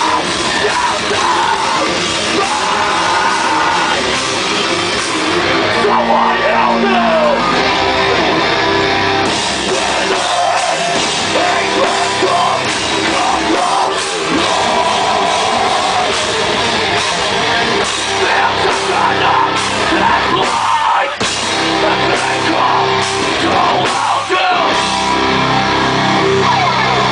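A live band playing loud heavy rock, with distorted guitars, a drum kit and sung vocals.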